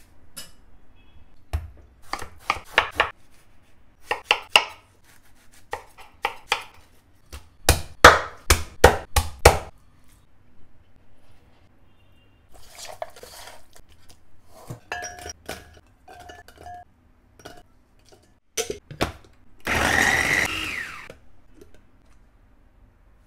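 Kitchen prep sounds: bursts of quick knocks and clinks from utensils and bowls. About twenty seconds in, an electric mini food chopper runs for a second or two, whirring as it chops onion, garlic and chilli; this is the loudest sound.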